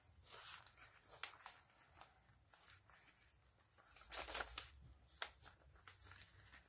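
Faint rustling with a few soft clicks as a satin-like ribbon is handled and tied into a bow against the paper pages of a journal, the handling busiest about four seconds in.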